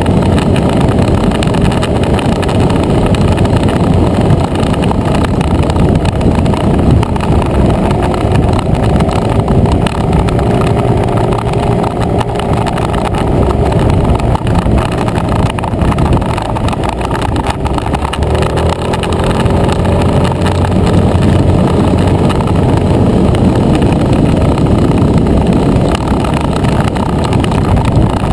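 Motor scooter engine running at road speed, recorded on board, with a dense rush of wind and road noise over it; the engine note rises and falls gently with the throttle.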